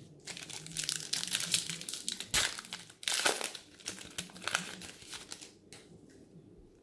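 Foil wrapper of a trading-card pack crinkling and tearing open, crackling on and off for about five seconds with one sharp snap about two and a half seconds in, then fading to light handling of cards.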